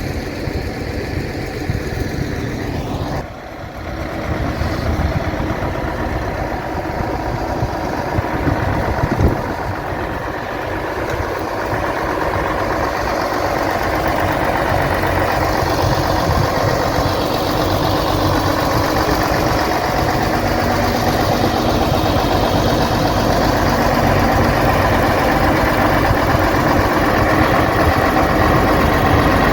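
Zetor 5748 tractor's diesel engine running steadily with the Dania D5500 forage harvester chopping corn, a continuous machine drone. It dips briefly about three seconds in and grows gradually louder through the second half.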